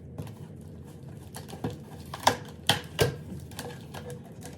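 Clicks, taps and rustles of a parcel being unpacked by hand, with three sharper knocks in quick succession around the middle.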